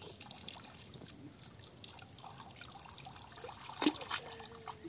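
Water trickling and dripping off a cast net as it is gathered and lifted from shallow muddy water, with a sharper splash about four seconds in.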